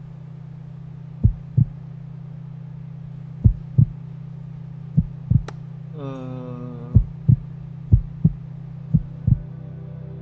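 Heartbeat sound effect: six paired lub-dub thumps over a steady low hum, coming closer together toward the end. A brief falling tone sounds about six seconds in.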